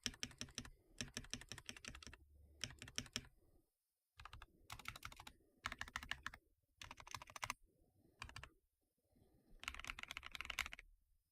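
Glorious GMMK 2 mechanical keyboard being typed on: quick runs of keystrokes broken by short pauses, with a fast, dense run near the end.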